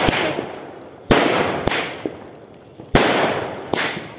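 Aerial fireworks going off close by: three loud bangs, at the start, about a second in and near three seconds, each trailing off into a fading crackle, with smaller pops in between.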